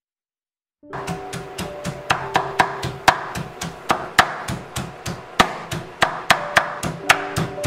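A large kitchen knife chopping cooked spinach on a wooden cutting board: quick knocks, about three or four a second, starting about a second in. Background music with held notes plays underneath.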